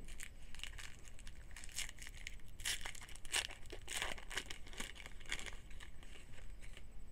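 Trading-card pack wrapper being torn open and crinkled by hand, a run of irregular crackling rustles that is busiest in the middle.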